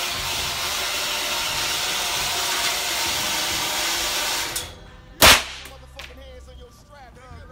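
A steady rushing noise for about four and a half seconds that cuts off, then a single loud .223 rifle shot about five seconds in, ringing in the indoor range, and another shot right at the end.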